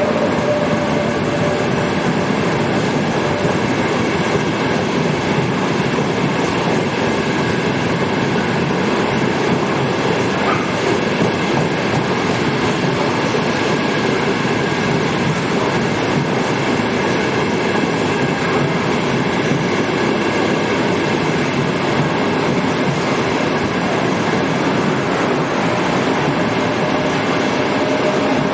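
A train rolling past close by: a steady, loud noise of wheels running on the track, with faint steady tones above it.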